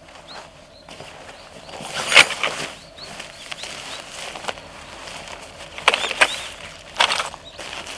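Tent carry bag and black stuff sack rustling and crinkling as they are pulled open and handled by hand, in uneven bursts with a few sharper knocks, the loudest about two seconds in and again near the end.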